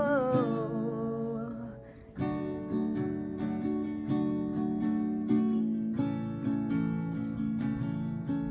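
Acoustic guitar strummed in chords. It drops away briefly about two seconds in, then the strumming starts again and keeps a steady rhythm.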